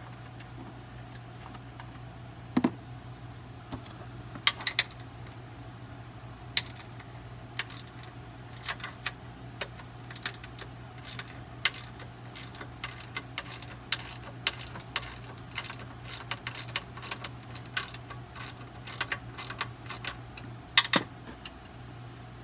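Scattered sharp clicks and clinks of hand tools and metal bolts being handled, irregular and a few a second at most, as upper strut mount bolts are taken out. The loudest clinks come about two and a half seconds in and near the end.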